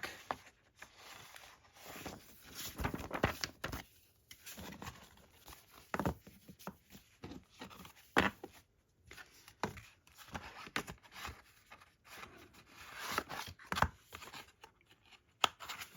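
Paper rustling and crinkling as a large poster is handled, with scattered light taps and clicks.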